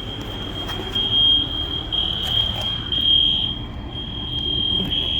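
Building fire alarm sounding a continuous high-pitched tone, swelling louder and softer about once a second.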